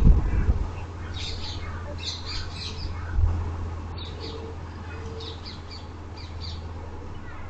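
Birds chirping and squawking in short scattered calls over a steady low hum, with a low thump at the start and another about three seconds in.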